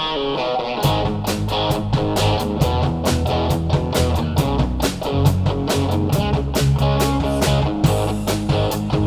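Live band playing at a sound check: guitar, with bass and drums coming in about a second in, the drums keeping a steady beat.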